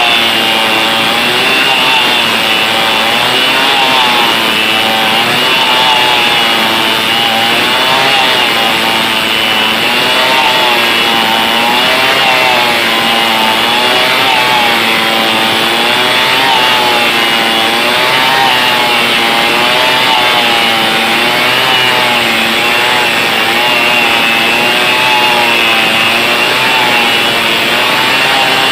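Stihl 070 two-stroke chainsaw running hard while cutting through a large tree trunk, its engine pitch dipping and recovering every second or two as the chain loads up in the wood.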